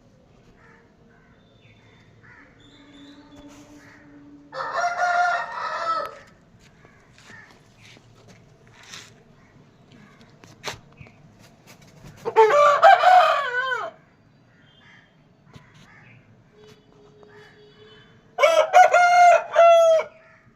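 Rooster crowing three times, each crow about one and a half to two seconds long and several seconds apart, with faint clucking in between.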